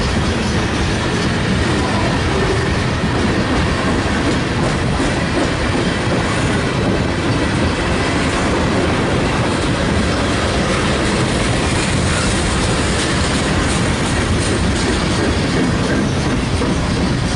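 Freight train cars rolling steadily past, a string of tank cars, boxcars and autorack cars, their steel wheels running loudly over the rails.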